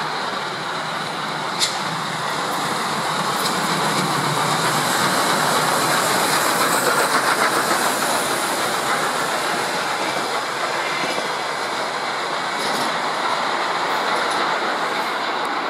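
Soviet L-class 2-10-0 steam locomotive L-5289 and its passenger coaches passing close at speed. The train noise builds to its loudest with a rapid wheel clatter about halfway through as the locomotive goes by, then eases as the coaches run past.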